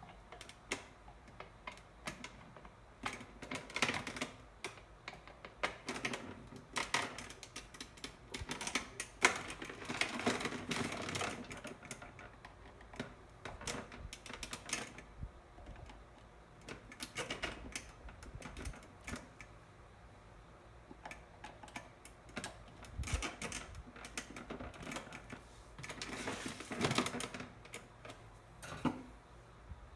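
Plastic electric fan parts clicking and clattering as they are handled and fitted together, in irregular bursts of small knocks.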